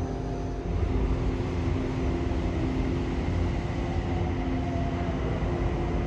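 Ambient background music: long held electronic notes over a low rumble.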